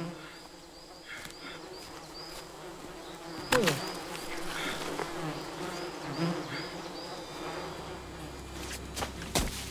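Flies buzzing over a bloody, rotting carcass, with a sudden loud cut into the flesh about three and a half seconds in and a couple of sharp thuds near the end. A high chirp repeats about three times a second.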